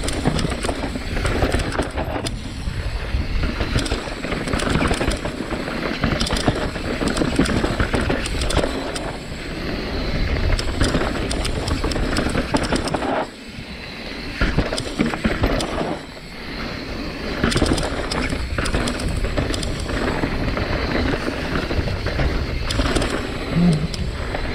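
Santa Cruz Bronson mountain bike ridden down a rocky technical trail: tyres grinding over rock and dirt, with the bike rattling and clattering at every hit and wind rushing over the microphone. It eases off briefly about thirteen and sixteen seconds in.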